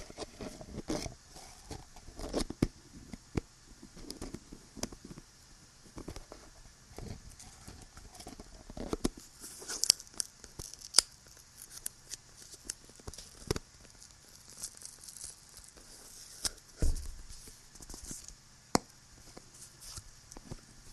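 Close-miked scratching, crinkling and sharp taps on small objects, coming irregularly, with a stretch of brighter rustling about halfway through and a duller thump later. A steady high hiss sits under it all.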